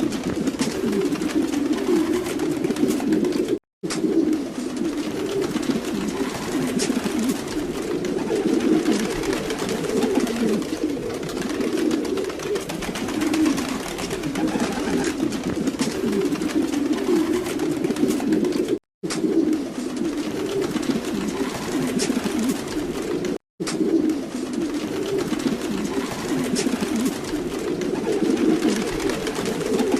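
A flock of domestic pigeons cooing, many low coos overlapping into a continuous murmur. The sound drops out completely for a moment three times.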